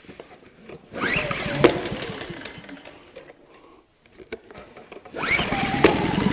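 Yamaha MZ80 four-stroke engine of a 2000-watt suitcase generator, choked, being pull-started by its recoil starter, each pull a rising whir. The first pull about a second in turns it over without catching. On the second pull, about five seconds in, it fires and keeps running, getting louder near the end.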